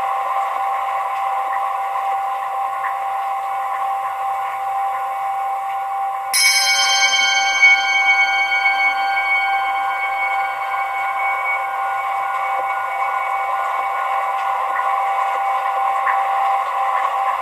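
A steady ambient drone with a few held tones and no bass, thin like a radio. About six seconds in, a single bell is struck once, and its ringing overtones die away over several seconds.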